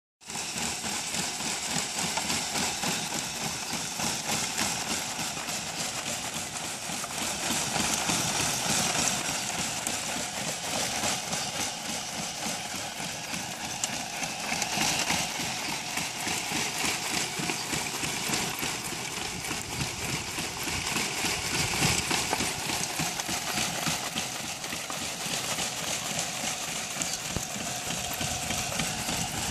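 Homemade motor-driven sieve shaking back and forth, driven by an electric motor through a crank wheel, as it sifts substrate: its wooden frame and mesh screen clatter in a fast, steady rattle.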